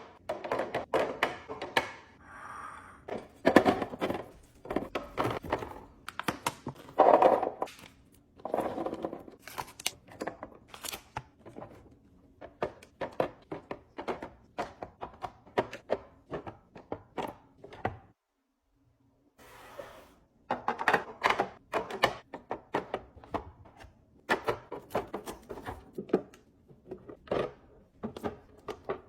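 Restocking sounds: a rapid run of knocks, clacks and crinkles as packaged snacks and containers are handled and set down. The run breaks off briefly for a second or so of silence about two-thirds of the way through.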